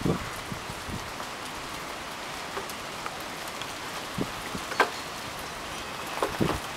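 Steady rain hiss, with a few single sharp ticks of drops about four seconds in and near the end.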